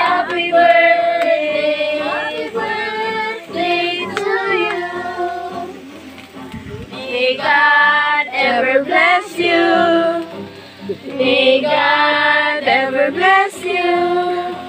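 A group of voices singing a birthday song together in sustained, held phrases.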